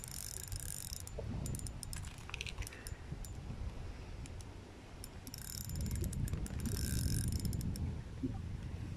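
Spinning-reel drag clicking in bursts as a hooked carp takes line, once at the start and again from about five to seven seconds in, over a low rumble.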